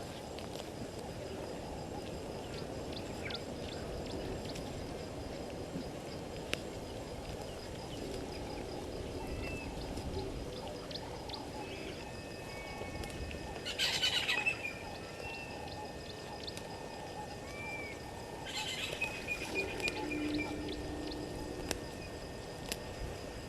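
Bush ambience with birds calling: scattered short whistles, and two louder bursts of chirping, one just past halfway and another later on. These sit over a steady low background hiss and a faint, steady high tone.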